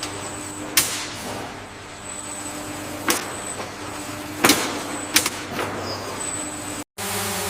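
Food-factory machinery running with a steady hum, broken by a few sharp clacks about a second in, at three seconds, and twice between four and a half and five seconds. Near the end the sound cuts out abruptly and steady electronic music begins.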